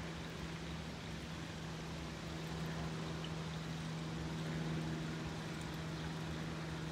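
A steady low motor hum that holds one pitch throughout, over light outdoor background noise.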